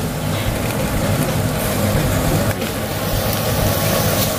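Meat sizzling over glowing charcoal on a tabletop grill, a steady rushing noise over a constant low rumble.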